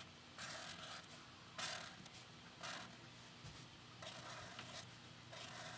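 Faint scratchy strokes of a brush-tip marker drawn across paper, about five short strokes with brief pauses between.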